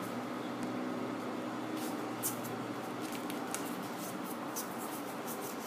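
A hand-held stack of trading cards being flicked through, the cards sliding and snapping against one another in quick light clicks, thickest from about two seconds in, over a steady low hum.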